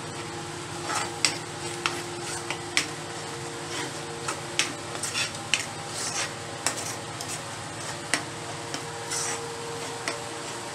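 A metal spoon scraping and clicking irregularly against a steel pan as thick masala paste is stirred while it fries, over a steady background hum.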